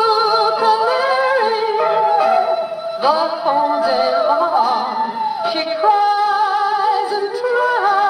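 A 1953 78 rpm shellac pop record playing on an HMV Model 130 acoustic gramophone: music with a wavering, vibrato melody over accompaniment, with no deep bass.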